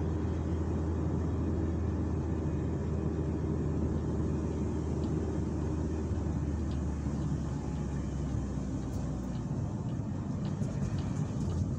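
Car cabin noise while driving on a rural road: steady engine hum and tyre rumble. The low engine hum drops away about nine seconds in.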